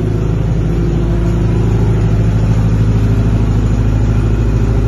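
30 kVA diesel generator set in a soundproof acoustic enclosure running steadily at constant speed with an even engine hum.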